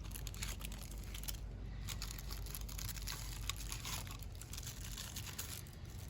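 Packaging being opened and handled: light crinkling and rustling with many small clicks as a new engine part is unwrapped.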